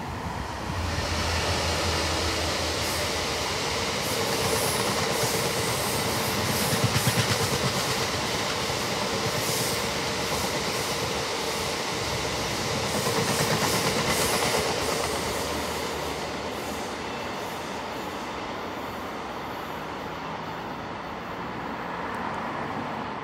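GBRf Class 66 diesel freight locomotive and its train of loaded ballast box wagons passing: the loco's low engine hum about a second in, then the long rake of wagons rolling by with wheels clattering on the rails, the noise easing off over the last several seconds as the train moves away.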